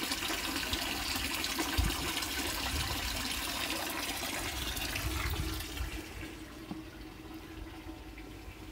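Water pouring and splashing into a plastic fish tank, with a dull knock just under two seconds in. The pouring fades about six seconds in.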